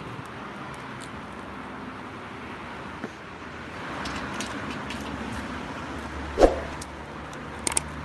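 Street traffic: a car passing swells and fades around the middle, followed by a low steady engine hum. A single sharp knock comes about six and a half seconds in, and a few light clicks near the end.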